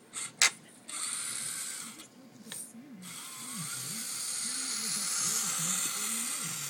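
Small electric RC monster truck's motor and gears whining as it is driven in bursts, cutting out briefly after about half a second and again from about two to three seconds in. A sharp click about half a second in is the loudest sound.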